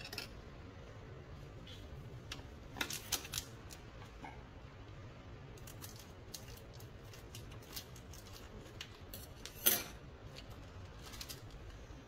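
Kitchen scissors snipping at a plastic spice packet: scattered short snips and crinkles, with a sharper clack a little before ten seconds in as the scissors are put down on the counter.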